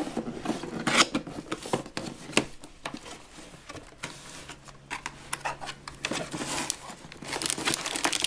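Cardboard toy box being opened by hand: a string of scrapes and clicks as the flap is pulled open and the contents slide out, then plastic wrapping crinkling near the end.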